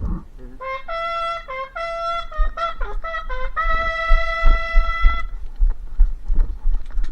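Trumpet call: a run of short notes stepping up and down, then one long held note that stops about five seconds in, sounding as the signal to start the game. Low thumps of movement run underneath and carry on after it.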